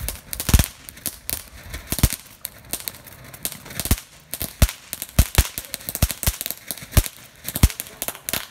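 Phantom Fireworks Large Cuckoo fountain burning, spraying sparks with irregular sharp crackling pops over a faint hiss, the loudest cracks a second or so apart.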